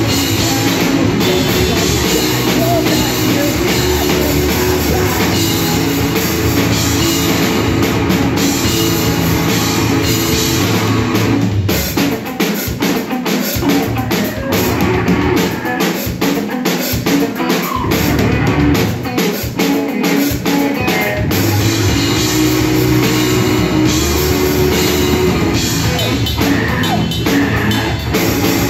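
Emo rock band playing live with electric guitars and a drum kit, no vocals. About twelve seconds in the low end drops away and the drums and guitars hit in sharp accents, then the full band comes back in near twenty-one seconds.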